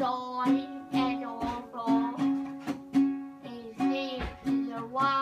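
A girl singing while strumming a nylon-string classical guitar, about two strums a second, with her voice holding and bending long notes between the strums.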